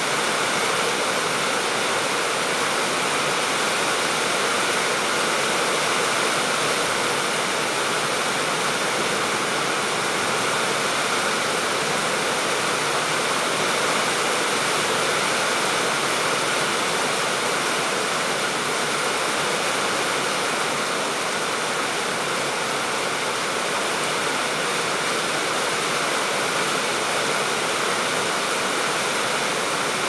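Steady rain falling on clay-tiled roofs and trees: an even, unbroken hiss.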